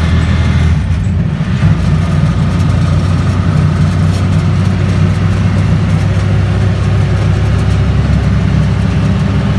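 Auto-rickshaw engine running steadily as the rickshaw drives along, heard from inside its open passenger cabin, with road noise.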